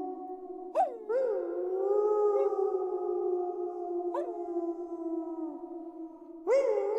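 Several wolves howling together in overlapping long howls. Fresh howls break in with a quick upward swoop about a second in, again around four seconds and near the end, over others that are held steady.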